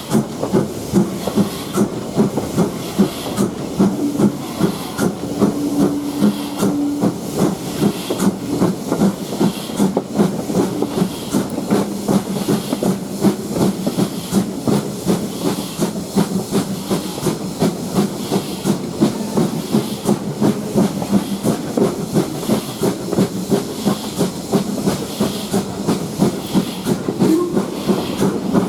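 LMS Ivatt Class 2MT steam tank locomotive No 41313 working a train along the line, steam hissing over a regular beat about twice a second.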